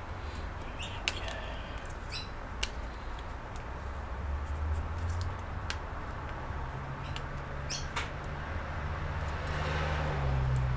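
A few sharp light clicks and small scrapes from handling a laptop's internal parts during a RAM upgrade, over a steady low hum.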